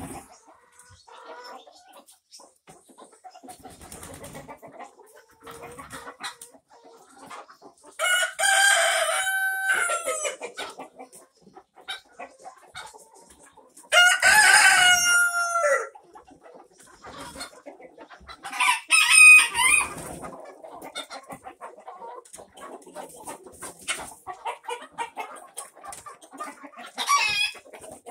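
A barnyard flock of chickens: roosters crowing several times, each crow drawn out for about two seconds, over quieter scattered clucking from the hens.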